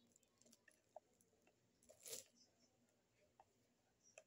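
Faint handling noises: light clicks from a white plastic soap holder and its box, with one brief rustle of packaging about two seconds in, as the holder is slid out of the box.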